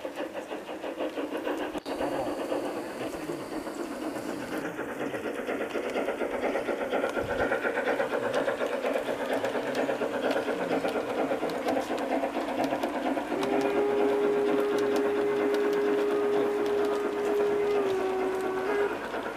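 Garden-railway model of a Harz narrow-gauge steam tank locomotive running with its coaches: a rapid, even chuffing and clatter from the locomotive and wheels on the track. About two-thirds of the way in a single steady whistle sounds for about five seconds, dipping slightly in pitch just before it stops.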